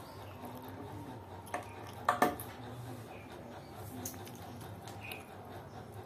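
A few sharp clicks or taps over a faint steady room background: one about one and a half seconds in, then two close together just after two seconds.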